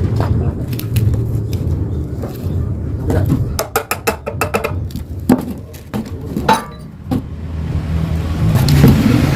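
Yamaha RX-King two-stroke single-cylinder motorcycle engine running through its gutted muffler, with metallic clicks and clinks in the middle while it runs quieter, then growing louder again near the end.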